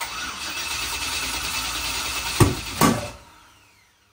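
Turbocharged 5.3-litre LS V8 being cranked over on the starter. Two sharp pops come about two and a half seconds in, then it winds down with a falling whine and dies away without running. The owner traces the trouble to the Holley ECU not syncing, because it is set up for a 24-tooth reluctor on a Gen 4 engine with a 58-tooth one.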